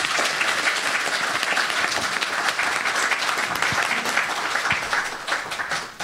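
Audience applauding at the end of a talk, a steady dense clatter of many hands clapping that dies away near the end.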